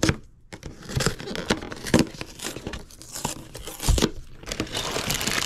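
Cardboard end flap of a Playmobil toy box being pried and torn open from its glue dots, with a series of sharp tearing snaps and scrapes. About four and a half seconds in it turns into denser, continuous crinkling of packaging as the contents are handled.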